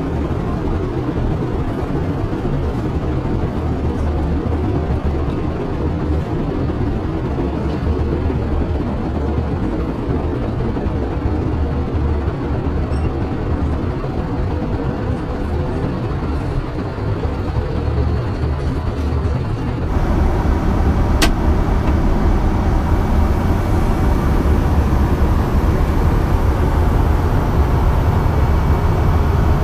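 Steady low rumble and rush of an Airbus A320 cabin in flight: engine and airflow noise. About two-thirds of the way through it abruptly becomes louder, and a single sharp click follows a second later.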